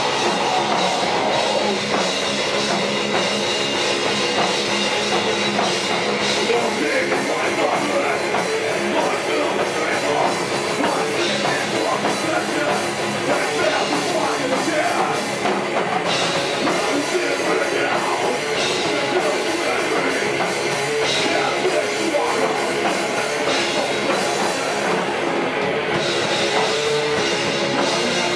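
Live heavy metal band playing without a break: distorted electric guitars, bass guitar and a pounding drum kit, with a vocalist singing or shouting into the microphone.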